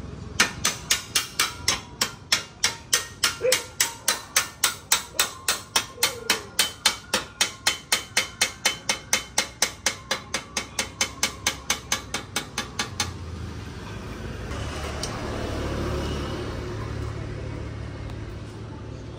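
Rapid, steady hammer strikes, about three or four a second, keeping up for some thirteen seconds and then stopping, followed by a softer steady rushing noise.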